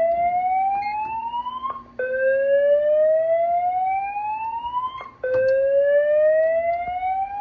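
Fire alarm voice-evacuation system sounding its whoop alert tone: a loud tone that rises steadily in pitch for about three seconds, stops briefly and starts again from the bottom, repeating. It is the building's evacuation signal, sounding between the spoken evacuation messages.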